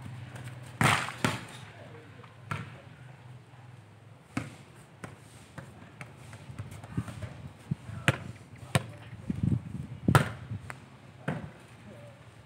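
A ball being struck and bouncing: irregular sharp thuds, the loudest about a second in and again near the ten-second mark, with lighter hits in between.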